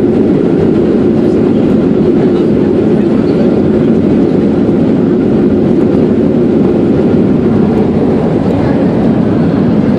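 Loud, steady roar inside an airliner cabin during the landing rollout: engine and airflow noise as the plane decelerates on the runway just after touchdown.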